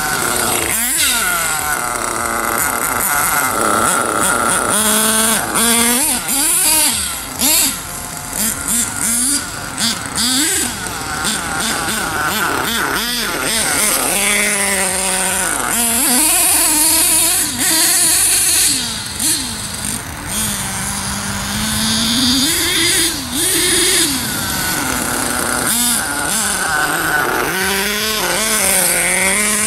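HPI Savage RC monster truck's small nitro two-stroke engine running under the throttle as the truck is driven, revving up and down over and over in rising and falling whines. The engine is still cold and only slowly warming up.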